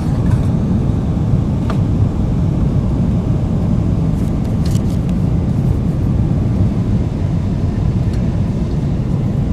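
Steady low roar of a Boeing 777-300ER's cabin in flight, the airflow and GE90 engines heard from an economy seat, with a few faint clicks.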